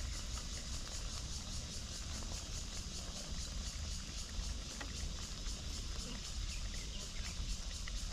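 Steady low hum and hiss of a pot of shark in coconut milk simmering uncovered on the stove, with a few faint small clicks.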